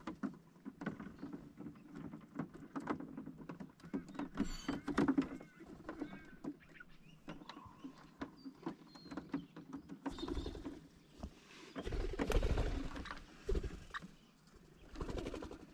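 Australian ringneck parrots on a caravan roof: a quick, uneven patter of claws tapping and scratching on the roof and solar panel, like rain, with a few short chirps. A louder stretch of thumps and rustling comes about ten to thirteen seconds in.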